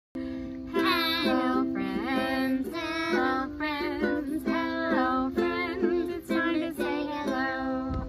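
Ukulele being strummed in chords, with a voice singing a tune over it.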